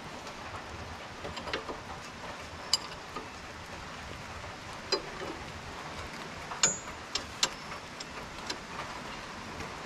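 Light rain pattering on a roof as a steady hiss, with scattered sharp metallic clicks and clinks of a wrench and parts at a Jeep's rear axle end and brake backing plate.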